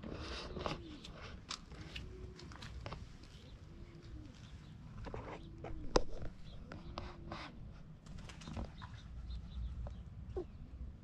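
Doves cooing, a low rounded call repeated about every one and a half seconds, with scattered sharp clicks and faint higher chirps; the loudest is a single sharp click about six seconds in.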